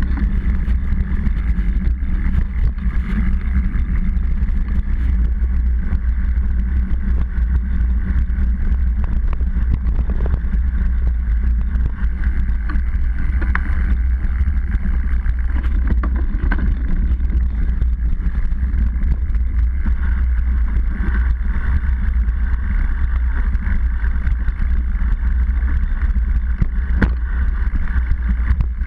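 Steady rumble and rattle of a mountain bike riding a dirt trail, heard through a camera mounted on the seatpost: tyre and frame vibration shaking the camera, with scattered clicks and knocks from the bumps.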